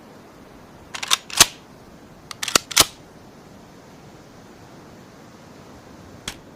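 Ruger American Rimfire bolt-action rifle being handled, most likely its bolt being worked: a quick cluster of sharp metallic clicks about a second in, a second cluster near the three-second mark, and one lighter click near the end.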